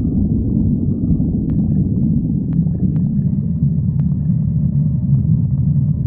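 Stomach growling: a continuous low rumble, with a few faint clicks.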